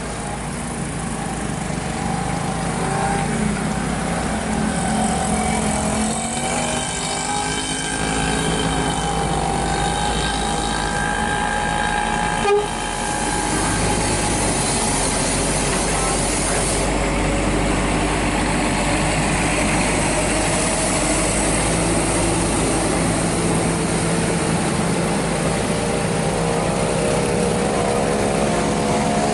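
Heavy diesel trucks and buses climbing a steep mountain grade, their engines running under load with the pitch rising and falling. There is a single sharp click about halfway through.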